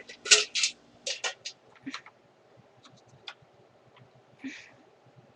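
Scattered light clicks and knocks from handling the plastic parts and screws of a vacuum cleaner being put back together, with the loudest knock near the start, a cluster about a second in and a short rustle near the end.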